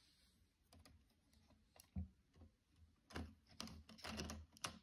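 Lego Technic plastic parts clicking and rattling as a hand presses and fits pieces on the model: a few sparse clicks, then a busier run of sharper clicks from about three seconds in.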